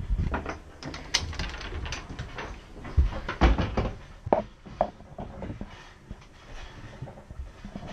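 Scattered knocks and bumps of someone moving about inside a small boat cabin, with two heavier thumps about three seconds in and lighter knocks after them.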